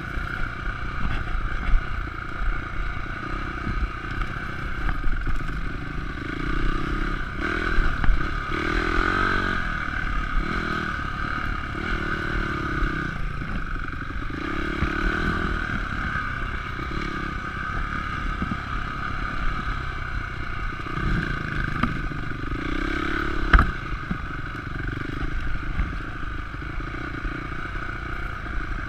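Honda CRF250X's single-cylinder four-stroke engine heard from the handlebar, the throttle repeatedly opening and closing so the engine note rises and falls, with the bike clattering over rough ground and brush scraping past. A few sharp knocks, the loudest about 23 seconds in.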